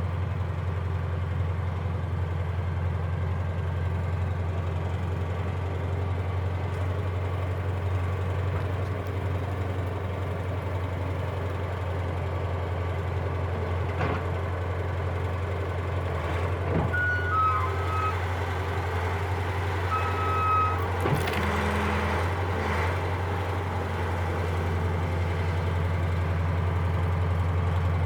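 An engine running steadily at idle, with a few short high beeps about two-thirds of the way through.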